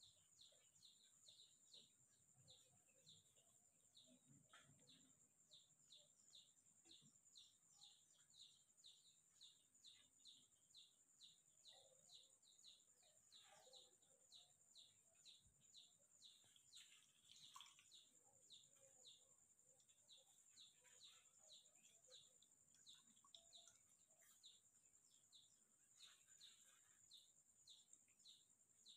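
Faint, short high-pitched chirps repeating about twice a second, over a faint steady high hiss.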